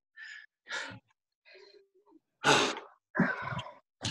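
A man breathing hard in short, gasping puffs, about five in all, the loudest about halfway through: he is out of breath right after a round of high-intensity exercise.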